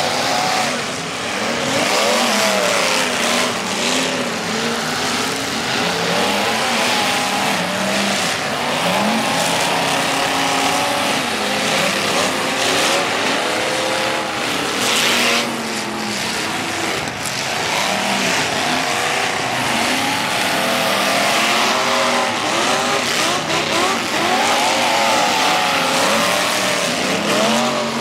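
Several figure-8 race cars' engines running hard at once, their overlapping engine notes rising and falling continually as the cars accelerate and lift around the dirt track.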